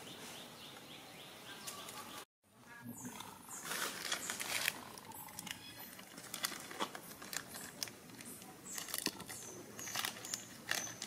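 Plastic snack wrapper crinkling and rustling in many short, irregular crackles as a young macaque handles and bites at it. There is a brief break in the sound about two seconds in.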